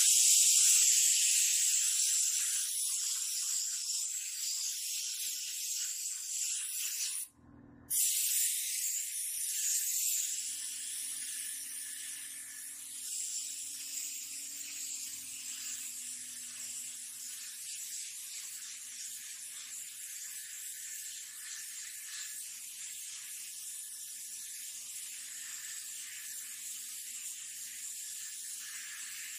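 Paint spray gun hissing as it sprays paint, breaking off for a moment about seven seconds in and then spraying again, with a faint low hum underneath.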